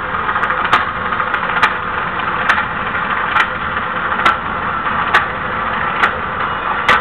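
Live stage music: a dense, steady wash of sound marked by a sharp percussive beat a little more often than once a second.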